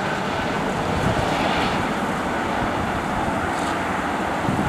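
Bombardier Global Express business jet on final approach, its two rear-mounted Rolls-Royce BR710 turbofans making a steady jet rush.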